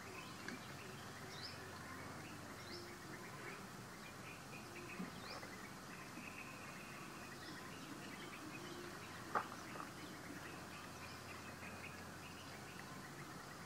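Quiet outdoor ambience with a steady low hiss and scattered short, high bird chirps. A brief sharp sound about nine seconds in is the loudest thing.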